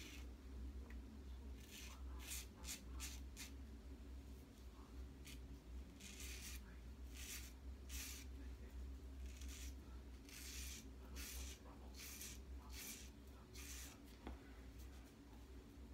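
Aluminum CR General double-edge safety razor scraping stubble in a series of short strokes, some in quick runs of two or three. These are touch-up passes over lathered skin.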